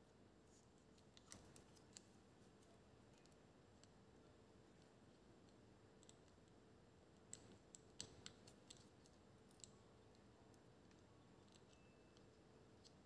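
Near silence broken by a scattering of faint, sharp clicks and taps from small parts of a handheld gimbal being handled during a repair: a few about a second in, then a cluster about seven to ten seconds in.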